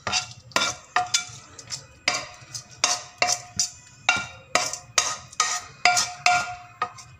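A spatula and a frying pan clinking and scraping against a large metal cooking pot as sautéed vegetables and dry fruits are scraped out of the pan into the cooked rice. Repeated sharp clinks, about two or three a second, each with a short metallic ring.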